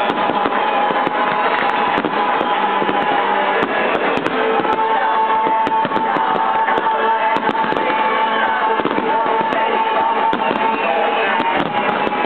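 Fireworks bursting and crackling in rapid succession, many sharp cracks, over loud music played for the display.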